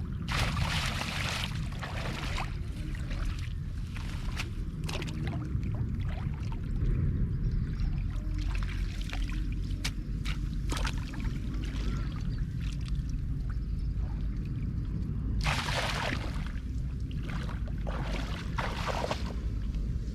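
Water splashing and pouring in several bursts, the longest near the start and two more near the end, over a steady low rumble.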